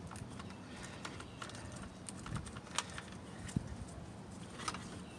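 Faint scattered clicks and ticks of a Phillips screwdriver backing a screw out of a plastic car grille, with a few sharper clicks from about three seconds in.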